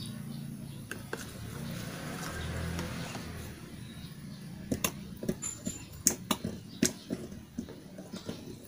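A wooden stick stirring a liquid mix in a plastic tub, a soft scraping, then several sharp plastic clicks and taps about five to seven seconds in as the tub is handled and lifted.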